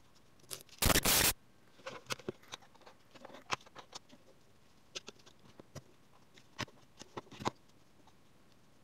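Small plastic clicks, scrapes and taps as the battery compartment cover on a PowerFix Profi+ LED magnifier's plastic housing is opened and AA batteries are fitted into it. A louder scraping rustle comes about a second in, followed by scattered clicks until near the end.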